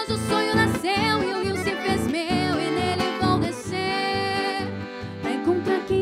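Live regional gaúcho song from southern Brazil: a piano accordion and an acoustic guitar play over a steady bass pulse while a woman sings a wavering melody line.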